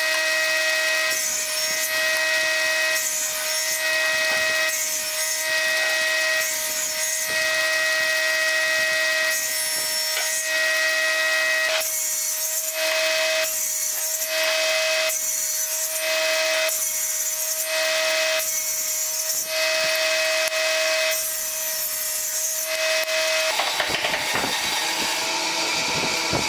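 Small table saw's circular blade running with a steady whine while short wooden pieces are cut off one after another, about one cut a second. The saw sound stops near the end.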